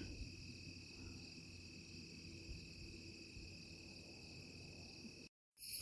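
Evening chorus of crickets and other insects: a faint, steady, many-voiced high trilling. Near the end it cuts out for a moment, then returns louder with a fast-pulsing, very high insect call on top.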